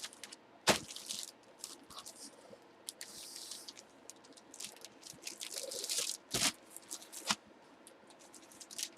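Packaging being handled and torn open: on-and-off crinkling and rustling, with a few sharp clicks or knocks.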